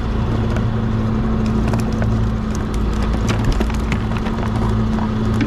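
Fishing boat's motor running steadily with a constant low hum, with scattered light clicks and knocks over it.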